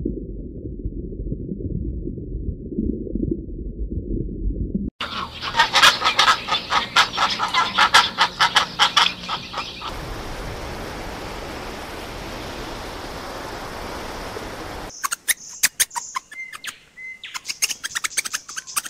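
A changing nature soundtrack. A muffled low rumble gives way at about five seconds to dense rapid clicking and chattering, which turns about halfway through into a steady even hiss. Scattered clicks with a few short chirps follow near the end.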